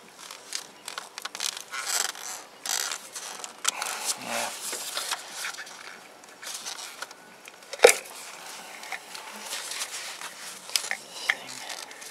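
Gloved hands working an ignition coil and its clip loose on a Ford V10 engine: scattered rustling, scraping and small plastic clicks, with one sharp click about eight seconds in, the loudest sound.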